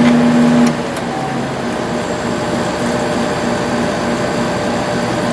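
Window air conditioner fans running with a steady whir, blower only: the compressor has not kicked in yet. About a second in, a humming tone cuts off with a click.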